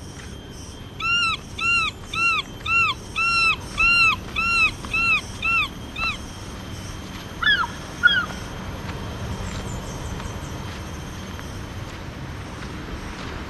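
An animal calling in forest: a run of about nine arched, rising-then-falling calls, roughly two a second, then two shorter notes a couple of seconds later, over a steady background hiss.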